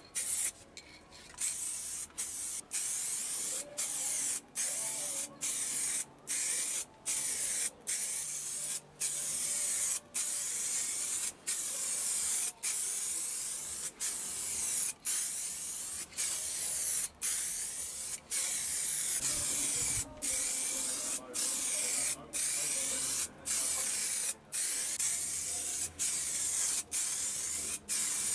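Aerosol rattle can of pearl white paint spraying onto a crash helmet in short passes. The hiss breaks off briefly about once or twice a second.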